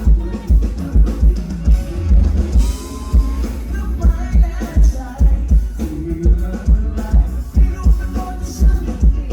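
Live band playing a pop song, with a steady kick-drum beat about twice a second under guitar and other instruments.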